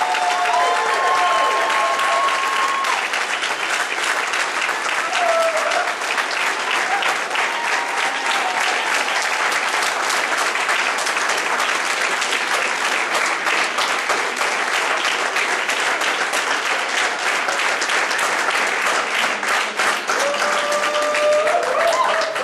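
Audience applauding steadily, with a few voices calling out over the clapping near the start and again near the end.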